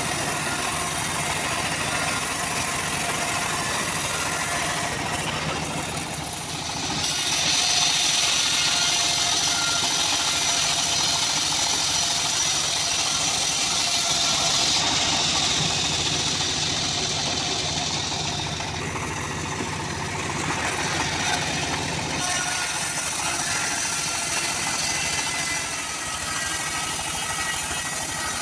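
Homemade bandsaw mill running steadily as its blade rips teak boards. A loud, high cutting hiss comes in about a quarter of the way through, lasts roughly twelve seconds, then falls back to the steady running of the machine.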